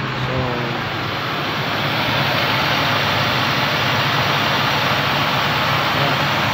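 Toyota Land Cruiser's straight-six gasoline engine running steadily after starting, getting a little louder about two seconds in. It now keeps running with a replacement genuine circuit opening relay fitted, the old relay having failed.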